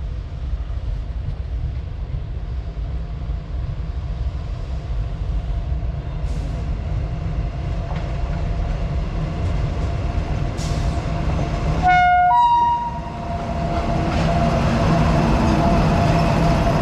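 WAG-9 electric locomotive with its freight train running, a steady low rumble. About twelve seconds in the horn gives a short two-note toot. After that the train sound grows louder.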